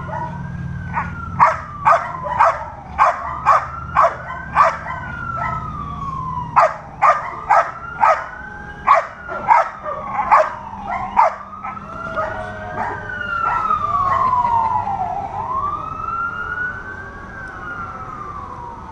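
A dog barking steadily at a protection-training decoy, about two barks a second in two runs with a short pause about five seconds in, stopping about eleven seconds in. Under the barking a siren wails slowly up and down the whole time.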